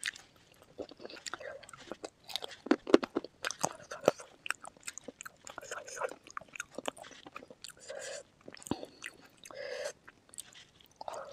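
Close-miked eating of spicy chicken feet curry with noodles: steady chewing and biting with many sharp crunches and wet mouth clicks.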